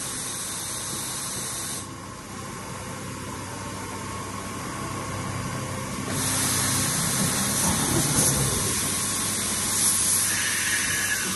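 1998 Mori Seiki SV-50 vertical machining centre's automatic pallet changer swapping pallets: a loud hiss that stops about two seconds in, leaving a lower mechanical hum while the pallets turn, then starts again about six seconds in.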